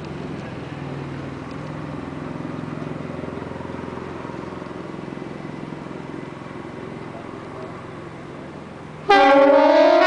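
Low steady background rumble, then about nine seconds in a Kockum Sonics KTG-10 pneumatic siren cuts in suddenly and loudly, a rich wail starting to rise in pitch. It is the opening of the Swiss 'general alarm' rising-and-falling tone.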